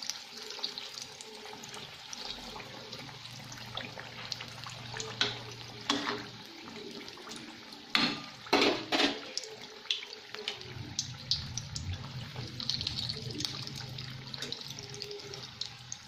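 Batata vadas (gram-flour-battered potato balls) deep-frying in hot oil in a kadhai, the oil sizzling and bubbling steadily. A few sharp knocks stand out about halfway through, in a cluster that is the loudest sound.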